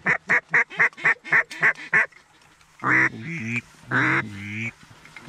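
Duck-like quacking: a quick, evenly spaced run of about nine short quacks, then two long drawn-out quacks about three and four seconds in.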